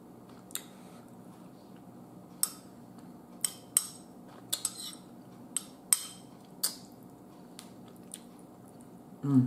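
Metal spoon clinking and scraping against a ceramic bowl of chili while scooping, about ten sharp clinks at irregular intervals.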